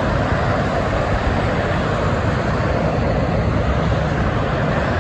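Steady noise of heavy traffic on a multi-lane expressway: the tyres and engines of cars and tractor-trailers passing.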